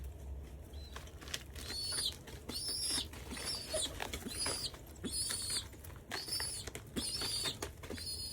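Young pigeon squeaking: high, thin peeps repeating about twice a second, starting about two seconds in, with faint taps and clicks between them.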